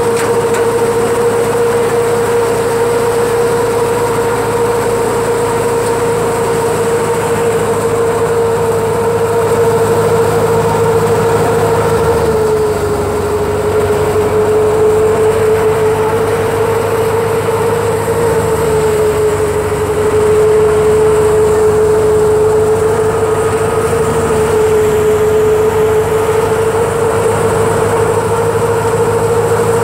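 Wheat thresher running under load as wheat is fed into it, with a steady, loud high hum over a low rumble. The pitch sags slightly twice, about a third and two-thirds of the way in.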